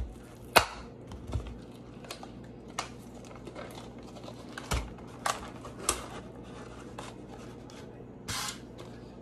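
Plastic shrimp-ring tray being pried open, its clear plastic lid popping and cracking off the black plastic base in a series of sharp clicks, the loudest about half a second in. A short scraping rustle near the end.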